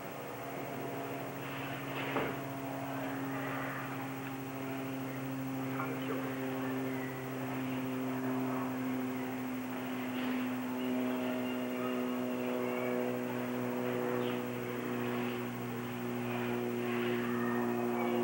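Steady mechanical engine-like drone holding a few low pitches that shift slightly over time, with a single sharp knock about two seconds in.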